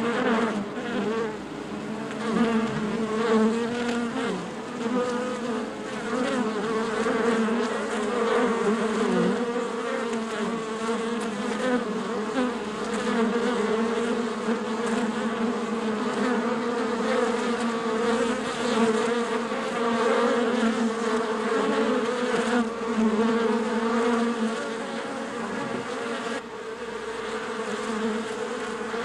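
Bees at a beehive buzzing together in a dense, steady hum whose pitch wavers slightly.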